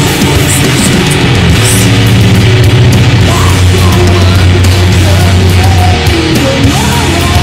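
Loud metalcore music from a full band. Low held notes sit under dense cymbals and a thick high wash, with a change in the low part about six seconds in.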